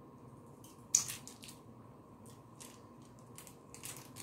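Crunchy bites and chewing of sweet peppers stuffed with cream cheese and Takis: a sharp crunch about a second in, then a scatter of smaller crunches.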